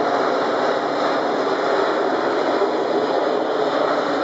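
Four-engine Airbus A380 airliner flying low overhead, its jet engines making a steady rushing noise at an even level.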